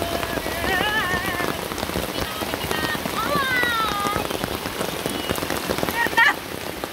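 Steady rain pattering down, a dense crackle of drops striking water and surfaces.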